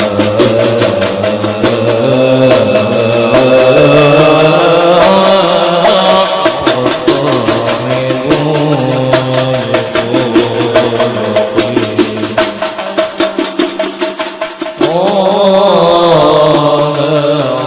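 A group of men chanting an Islamic devotional song in unison over fast, steadily beaten frame drums. A new sung phrase comes in sharply near the end.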